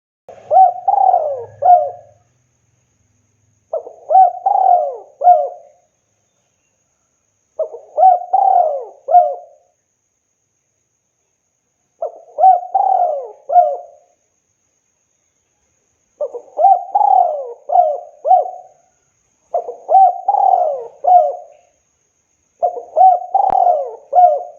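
Spotted dove (tekukur) cooing: seven short phrases of several coos each, about two seconds long and spaced three to four seconds apart.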